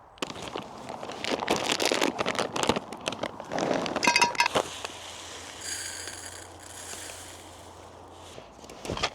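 Rustling, crinkling and clinking handling sounds, with a quick rattle about four seconds in, then quieter for the rest.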